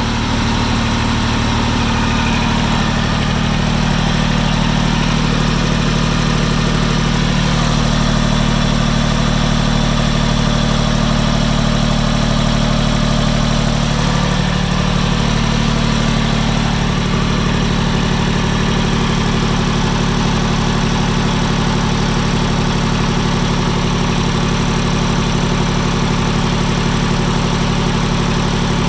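Farm Pro 2425 tractor's diesel engine running steadily at a constant speed, not yet knocking: it is still within its first minutes after a cold start, and the knock appears only once it has run for 5 to 10 minutes.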